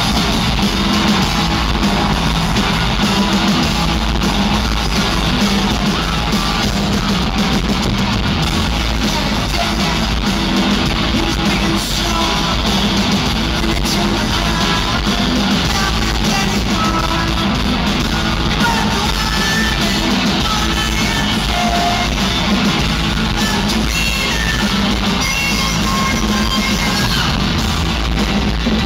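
Rock band playing loud live in an arena, with electric guitars and drums and a male singer, recorded from the audience with poor sound quality.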